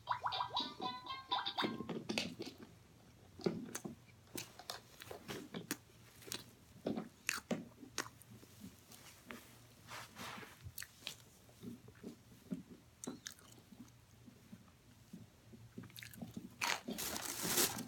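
Oven-baked cornstarch chunks, eaten frozen, being bitten and chewed: irregular crisp crunches. A longer, louder crunching burst comes near the end.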